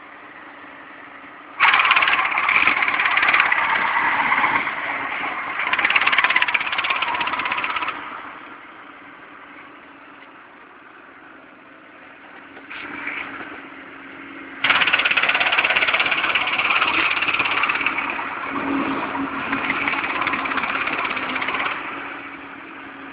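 A John Deere tractor working a ditch-mowing basket on its hydraulic arm: the engine runs with a steady hum. Twice the machinery abruptly turns much louder and harsher for six or seven seconds, first about two seconds in and again about fifteen seconds in.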